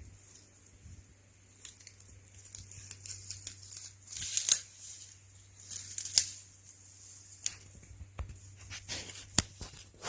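Dry brush and briars rustling and crackling as a person pushes through a dense bramble thicket, with a few sharp cracks among the rustling.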